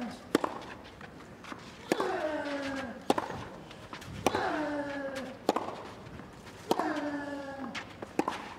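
Tennis rally on clay: racket strikes on the ball about every 1.2 s, alternating between the two players. Each of the near player's shots comes with a short grunt that falls in pitch, three times.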